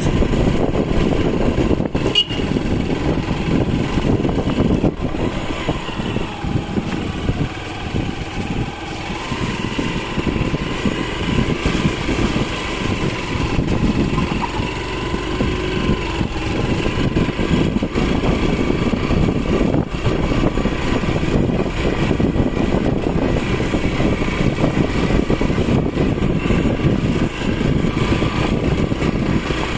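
Motorcycle running steadily as it rides over a rough, loose gravel and stone track, the engine sound mixed with the bumping and jolting of the bike over the rocks.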